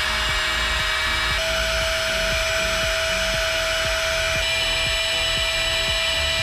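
Heat gun running to seal heat-shrink wire connectors watertight: a steady fan whine over a rush of air, the pitch stepping up a little about a second and a half in.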